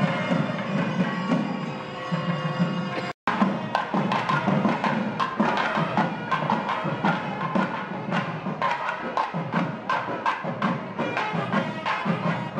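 Festival music: drumming over steady held tones. About three seconds in it cuts out for an instant, then comes back as dense, fast drumming with sharp hits.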